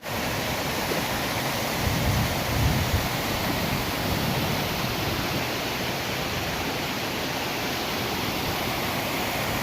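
Waterfall: a steady rush of falling water, with a brief low rumble about two to three seconds in.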